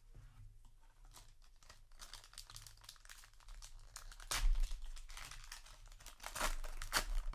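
Trading card booster pack wrapper crinkling and tearing as it is opened, with the loudest crinkles about four and a half and about six and a half seconds in.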